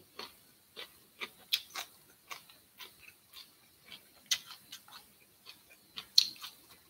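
A person chewing a mouthful of grilled squid, making a run of short crunching clicks, about two a second, some louder than others.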